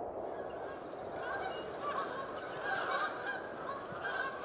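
A flock of geese honking in flight, many overlapping calls starting about a second and a half in.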